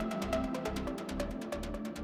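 Uplifting trance music: a pulsing bass line under rapid, evenly spaced hi-hat ticks and sustained synth chords.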